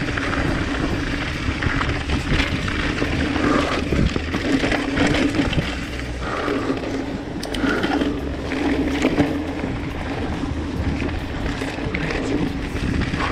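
Mountain bike rolling down a rocky dirt singletrack: tyres crunching over loose gravel and stones, with the bike rattling and knocking over bumps. A low rumble of wind on the microphone runs under it.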